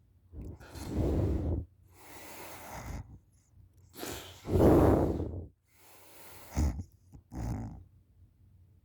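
A person snoring in deep sleep, lying on their back with mouth open: a string of separate snoring breaths about a second long with short gaps between, the loudest about halfway through.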